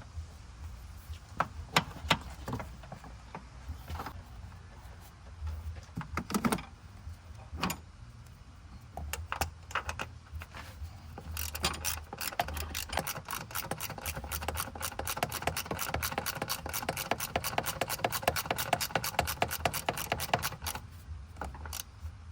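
Ratchet wrench working bolts on an engine mount during reassembly. A few scattered metal clinks and clicks come first, then fast, steady ratchet clicking through most of the second half.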